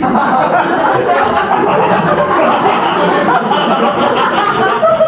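Human voices laughing and making wordless vocal noises, with no clear speech.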